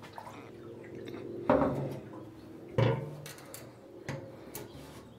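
Metal clanks and knocks as a Farmall Super C's fuel tank is fitted into place. There are two loud ringing knocks, one about a second and a half in and one just before three seconds, with smaller knocks around them.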